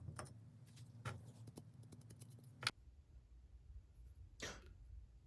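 Hand tap being worked into a drilled hole: faint scattered metal clicks and ticks, with one sharper click about two and a half seconds in.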